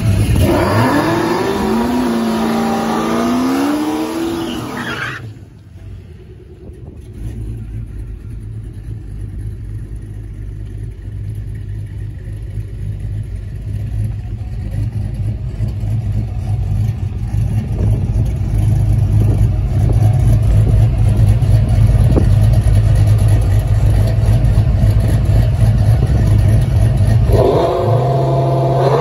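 A car engine revving up and down sharply for about five seconds, then cutting off abruptly. A deep, steady engine rumble follows and slowly grows louder, with the engine revving up again near the end.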